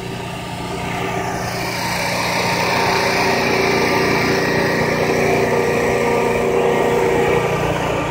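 A steady engine running, its hum growing louder over the first few seconds and then holding even.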